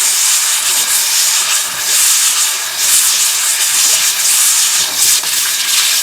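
A brake shoe's lining held against 80-grit sandpaper stuck inside the spinning drum of a vintage BMW R 51/2 simplex brake: a loud, steady sanding hiss that swells and dips a little, as the shoe is ground to the drum's arc.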